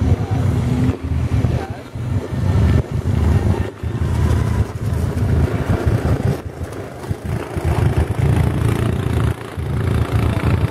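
Off-road vehicle engines running in the mud, the sound rising and falling with several short dips.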